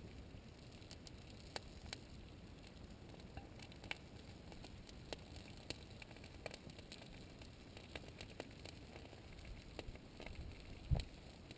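Pahoehoe lava oozing out from under its crust, with faint, irregular sharp crackles and ticks, roughly one a second, as the cooling crust cracks. A brief low thump comes near the end.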